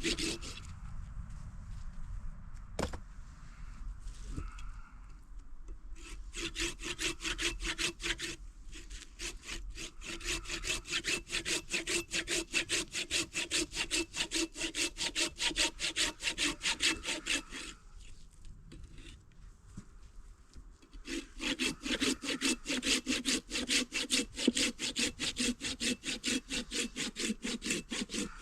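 A hand saw cutting through wood with quick, even back-and-forth strokes, in two long bouts separated by a pause of a few seconds.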